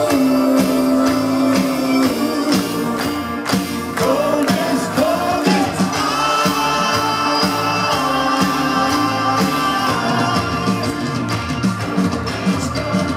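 Live rock band playing: a lead singer over electric guitars, keyboards and drums, with a steady beat.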